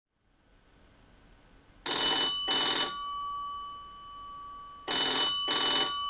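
Western Electric rotary telephone's bell ringing for an incoming call in a double-ring pattern: two short rings about half a second apart starting about two seconds in, the pair repeated about three seconds later, with the bell gongs ringing on after each pair.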